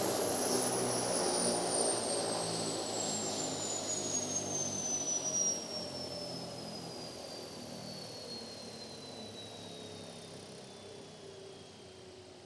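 Bell 505 Jet Ranger X helicopter shutting down after landing: the turbine whine falls steadily in pitch while the rotor winds down, and the whole sound fades.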